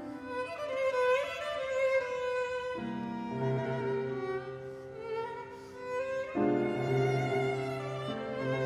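Classical violin playing a bowed melody with grand piano accompaniment. Low piano chords enter under the violin line about three seconds in and again after about six seconds.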